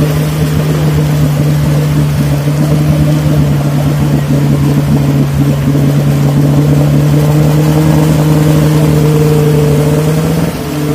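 Off-road 4x4's engine held at high, steady revs while it pushes through a deep mud rut, the pitch creeping up slightly before the revs drop suddenly near the end.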